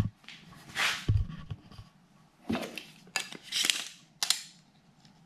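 Handling noises: a short scrape, a knock, then several sharp metallic clicks and brief scrapes as a steel woodturning gouge and a tape measure are picked up and laid against each other on the lathe bed.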